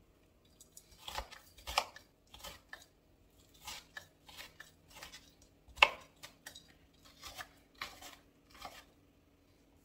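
Knife finely chopping an onion, the blade striking the cutting board in a dozen or so uneven strokes, one much sharper about six seconds in.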